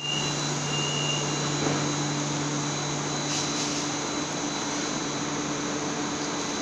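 CRRC Changchun electric multiple unit (KLIA Ekspres train set) departing, giving a steady electrical hum and whine with a lower tone joining about two seconds in. A short hiss sounds about three and a half seconds in.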